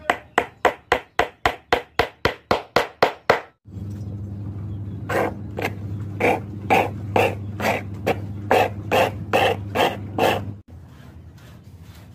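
A small hammer tapping a nail into a wooden block in quick, even strikes, about four a second. After a cut, a flat file rasping back and forth across wood, about two strokes a second, over a low steady hum.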